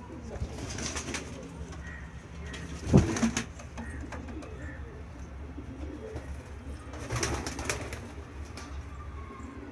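Domestic magpie pigeons cooing in their loft, with a few short noisy bursts and one sharp loud knock about three seconds in.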